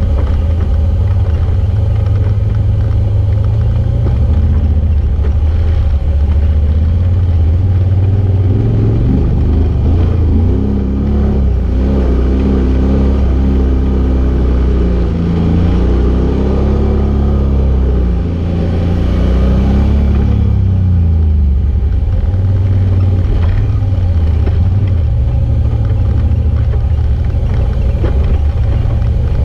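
Side-by-side off-road vehicle's engine running loud and close while driving over rough ground. Its pitch rises and falls repeatedly in the middle stretch as the throttle is worked.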